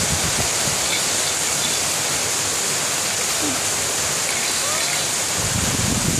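Steady, even rushing hiss, with a few faint baby sounds in the middle and some low rumble near the end.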